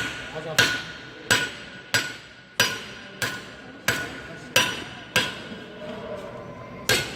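Hammer striking hot metal in forging, about ten evenly paced blows, each with a short metallic ring: the heated bar is being hammered square.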